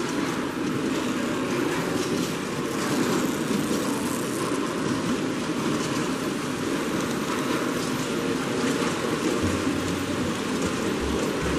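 N scale model passenger train rolling past close by on a T-Trak modular layout: a steady rolling rumble over the even background noise of a busy exhibition hall.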